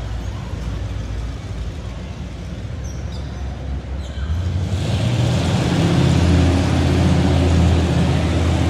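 Monster ride truck's engine running as it drives around a dirt track, a steady low drone that grows louder and fuller about halfway through.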